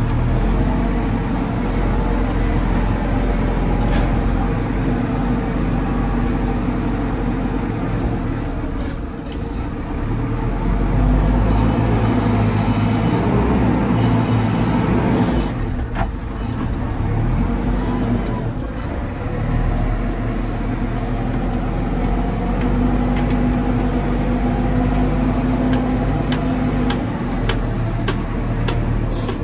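JCB 4CX backhoe loader's diesel engine running under load, its revs swelling and easing as the loader works, with a few sharp knocks.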